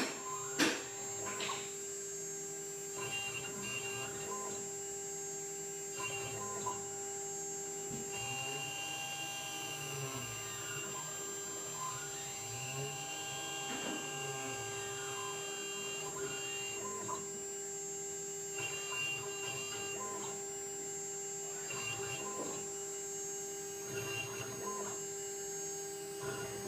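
Mini CNC engraving machine cutting a brass seal: the spindle runs with a steady hum while the axis motors whine in rising and falling glides, and the bit gives scattered light ticks on the metal.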